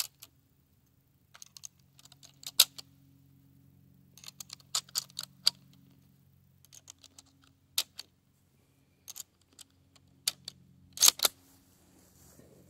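Sharp metallic clicks and clacks of a Mosin-Nagant 91/30 bolt-action rifle's bolt and action being worked as it is readied to fire, coming irregularly in small groups, with the loudest pair just after eleven seconds in.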